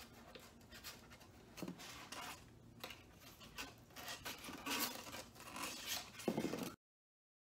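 Styrofoam boards scraping and rubbing against each other as they are handled and pressed together, an irregular run of scratchy squeaks and rustles. The sound cuts off abruptly near the end.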